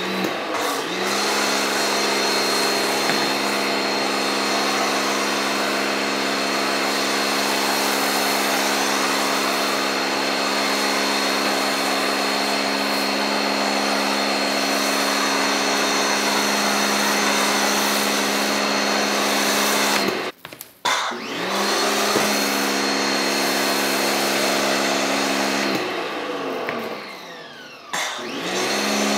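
Electric pressure washer (Kärcher K1700 Cube) running steadily under load while feeding a foam cannon: a motor-and-pump whine over the hiss of the foam spray. About twenty seconds in it cuts out for a second and starts again, and it winds down and back up once more near the end.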